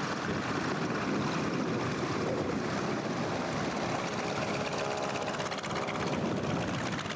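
Propeller aircraft engine running steadily, a continuous engine drone with no break.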